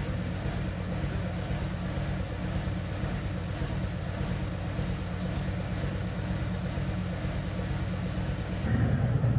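Harley-Davidson Road King Special's V-twin engine idling steadily, then growing louder and heavier near the end as it is given throttle.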